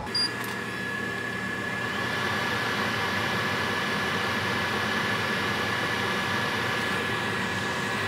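Steady fan whir with a faint high whine, growing slightly louder over the first two seconds and then holding; a small click just after the start.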